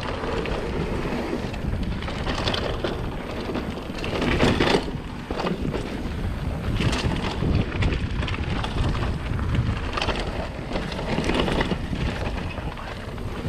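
Wind rushing over the microphone of a mountain bike descending a dirt trail, with tyre noise and irregular knocks and rattles as the bike runs over bumps.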